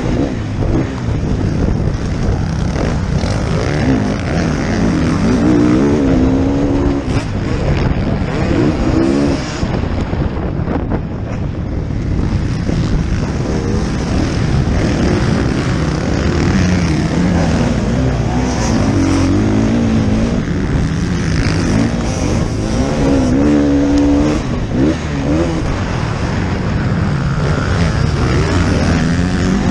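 Motocross bike engine revving hard and easing off again and again, its pitch rising and falling with each throttle change as the bike races the track. Heard from a helmet-mounted camera on the rider's own bike.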